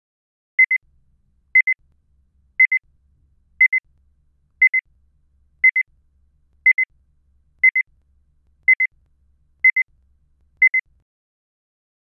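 Electronic beep tone: a short, high double beep once a second, eleven times, then it stops. It is a timing signal counting off the answering time after a question.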